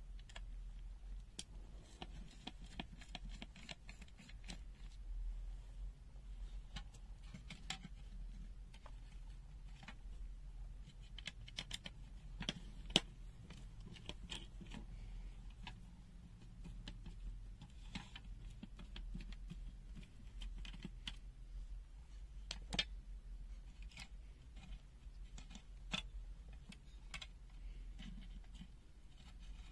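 Faint scattered clicks, taps and light scrapes of a small screwdriver and plastic multimeter case parts being handled during disassembly, the sharpest click about thirteen seconds in. A steady low hum runs underneath.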